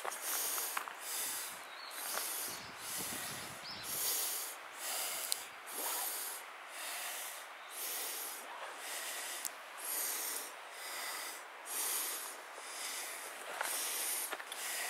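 Footsteps on a dry, leaf-strewn dirt trail: an even walking rhythm of soft scuffing crunches, about three steps every two seconds.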